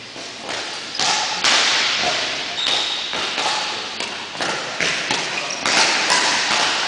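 Badminton rally: a series of sharp racket hits on the shuttlecock and players' footfalls on the court floor, with a few short shoe squeaks, echoing in a large sports hall.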